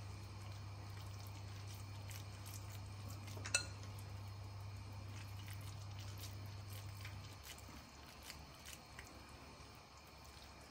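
Hands pressing and patting a wet grated-potato coating onto a chicken skewer: faint soft squishing and rustling with small ticks. A low steady hum runs beneath it and stops about seven and a half seconds in, and a single sharp click comes about three and a half seconds in.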